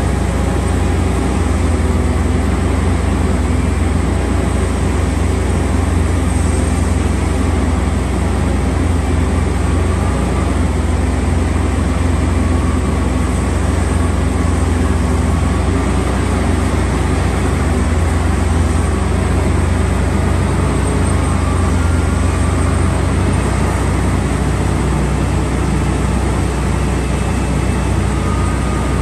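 Steady, loud low rumble of a running vehicle, unbroken throughout.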